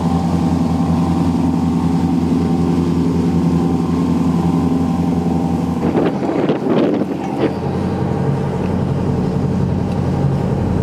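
Charter fishing boat's engine running steadily as the boat moves, with the propeller wake churning. About six seconds in the engine drops lower under a few brief voices.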